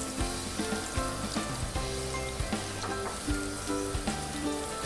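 Finely chopped garlic sizzling in olive oil in a pot while it is stirred with a wooden spoon, at the start of browning.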